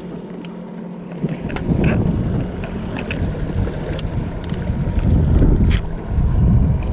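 A boat under way: a steady engine hum, with wind gusting on the microphone in heavy low rumbles, and a few light clicks.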